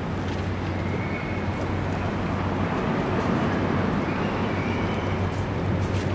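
Steady room noise with a constant low hum, and no distinct event standing out.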